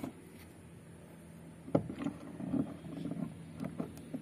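Pipe wrench turning a plastic pipe fitting at the outlet of a plastic water tank: a sharp click a little under two seconds in, then a few faint knocks and scrapes.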